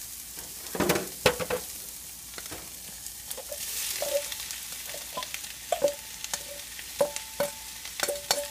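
Banana slices and onions sizzling in hot oil in a cast iron skillet as the slices are tipped in from a stainless steel bowl. A utensil scrapes and taps the bowl, and each tap leaves a short metallic ring; the taps come faster near the end.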